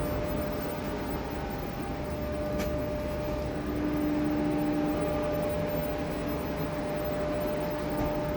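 Steady machine hum with a constant whine, and one sharp click about two and a half seconds in.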